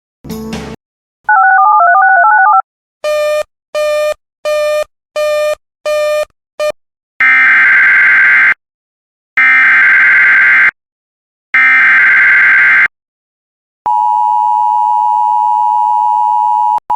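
Emergency Alert System header: a warbling data burst and a run of six beeps that get shorter, then three even bursts of SAME digital header data tones. These are followed by the steady two-tone EAS attention signal (853 and 960 Hz) for about three seconds, which cuts off abruptly. This is the coded start of a new alert.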